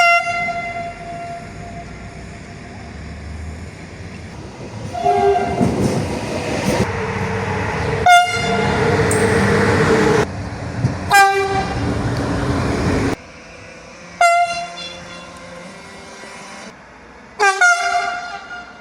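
Train air horn sounding about six short blasts a few seconds apart, some on two notes at once. A passing train's loud rumbling noise runs through the middle, stopping abruptly at about 13 seconds.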